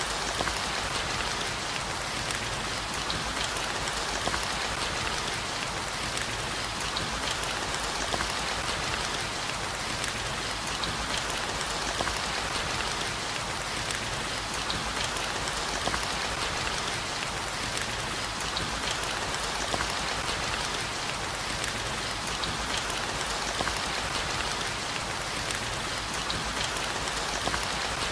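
Steady rain falling: an even, dense hiss with scattered sharper raindrop ticks.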